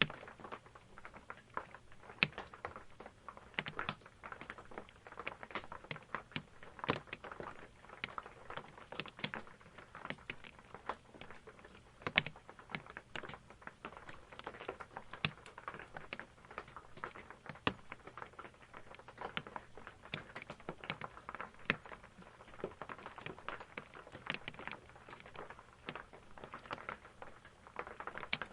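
Rain heard from inside an RV: dense, irregular drops tapping and pattering on the roof, some louder single drips standing out among them.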